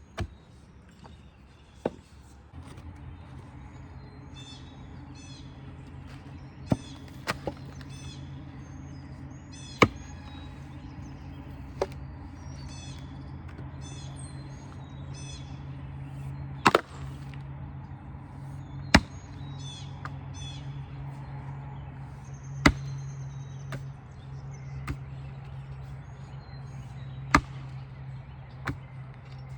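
About a dozen sharp, irregularly spaced knocks from an axe head being struck to seat it on its wooden handle during hafting. A steady low hum comes in about two and a half seconds in, and birds chirp in the background.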